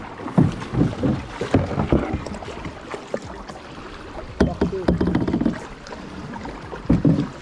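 Canoe on the water: irregular knocks of paddles and bodies against the hull, with water splashing.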